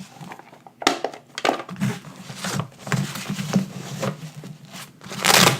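Small tools being handled and set down on a work surface: a scatter of light clicks and knocks, with a louder rustling scrape about five seconds in.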